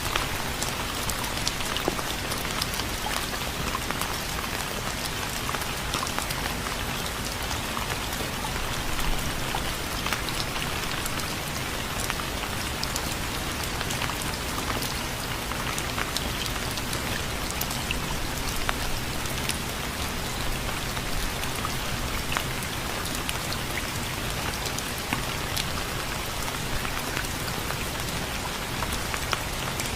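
Steady rain falling, an even dense hiss with many individual drops striking a surface.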